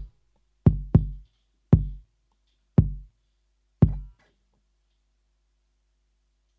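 Finhol Stompcon foot percussion box stomped five times, each a sharp hit with a deep booming decay like a kick drum. The first two hits come close together, the rest about a second apart.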